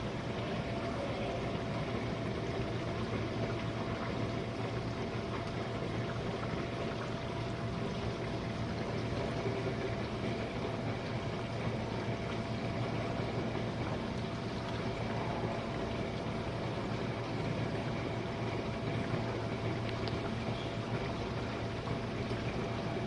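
Jenn-Air dishwasher running a wash cycle: a steady motor hum with water spraying and splashing inside the tub.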